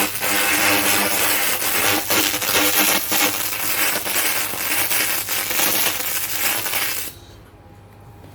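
A 1000 W laser cleaning machine's beam ablating the surface of a workpiece: a loud, dense crackling hiss full of sharp clicks. It stops suddenly about seven seconds in.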